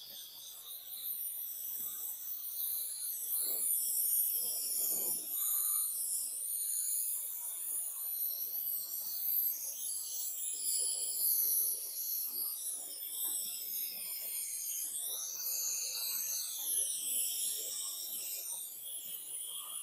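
A steady high hiss whose tone drifts slowly up and down, with faint light ticks beneath it.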